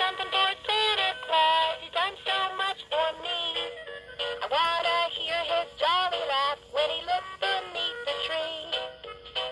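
Gemmy animated Christmas plush dog singing a Christmas song through its small battery-powered speaker, a thin, tinny voice with no bass.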